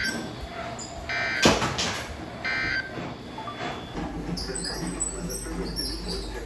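Three short, high-pitched electronic beeps about a second and a half apart, with a couple of sharp knocks around the second beep.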